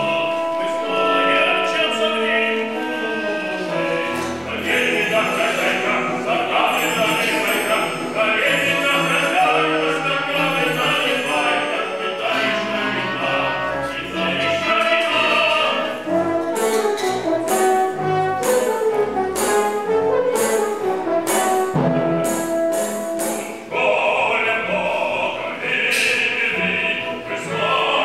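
Operatic singing with orchestral accompaniment.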